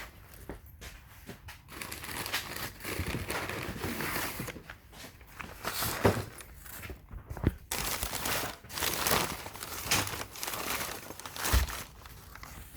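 Crinkling and rustling of packaging being handled, broken by a few sharp knocks.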